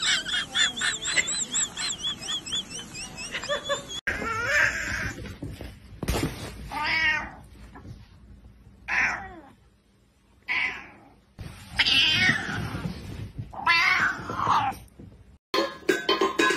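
A cat yowling and growling in about six long drawn-out calls with short pauses between them. Before that comes a rapid run of high squeaky chirps, and in the last second there is the clinking of a metal bowl being pawed on a hard floor.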